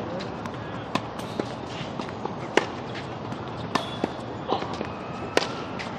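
Tennis rally on a hard court: sharp pops of racket strings striking the ball and the ball bouncing on the court, about one every second, the loudest about two and a half and five and a half seconds in.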